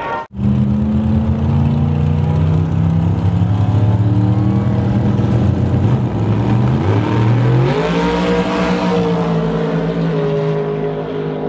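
Drag race car engines running loud and steady at the starting line, then rising sharply in pitch about seven seconds in as the cars launch, the tone held high and slowly falling as they run down the strip.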